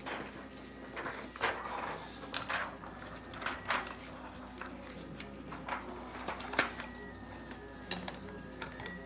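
Stiff plastic transparency film and tape being handled and pressed down, giving irregular sharp crackles and rustles, the loudest about a second and a half in and near six and a half seconds. Under it, a 3D printer's stepper motors whine steadily, their pitch stepping between moves.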